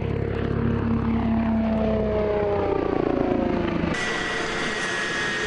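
Eurocopter X3 hybrid helicopter passing low and fast, its rotor and propeller drone falling in pitch as it goes by. About four seconds in the sound cuts to the X3 running on the ground, main rotor and wing propellers turning, with a steady high turbine whine.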